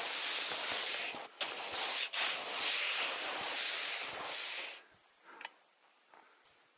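Snow hissing and crunching steadily under someone moving across it, with uneven surges. It stops about five seconds in, leaving only a few faint small sounds.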